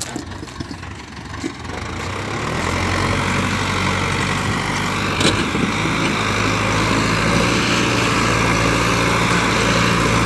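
Sonalika DI 750 tractor's diesel engine labouring steadily as it hauls a heavily loaded soil trolley uphill. It grows louder over the first few seconds as it comes closer, with a single sharp click about five seconds in.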